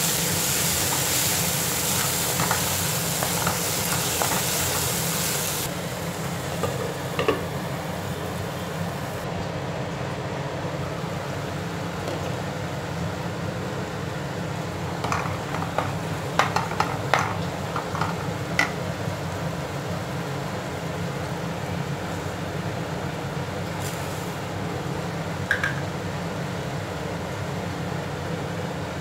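Chopped onions and tomatoes sizzling in oil in a frying pan, with a wooden spatula stirring and scraping against the pan in short clicks, most of them in a cluster about two-thirds of the way through. The sizzle is loudest for the first several seconds and then settles a little quieter, over a steady low hum.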